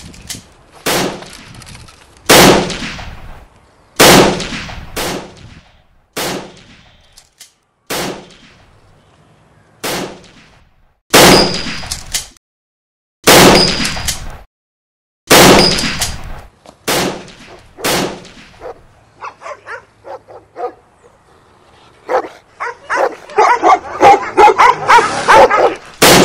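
Gunshots, about a dozen single shots one to two seconds apart, each ringing out and dying away. Then a run of quicker, lighter cracks, and near the end a dense loud flurry in which dogs are barking.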